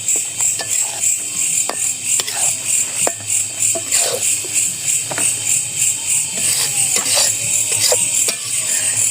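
Night insect chorus: a high-pitched buzzing that pulses evenly about three times a second, with scattered small clicks and knocks.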